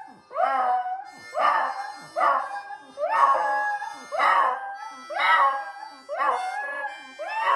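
A pet dog 'singing': howling in a string of short yowls, about one a second, each rising and then falling in pitch.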